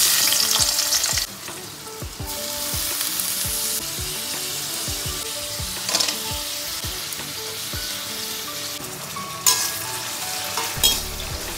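Chopped onion, tomato, cashews and garlic sizzling in hot oil in an aluminium kadai. It is loudest as each batch goes in, at the start and again about two seconds in, then settles to steady frying while a perforated ladle stirs, with a couple of sharp clicks near the end.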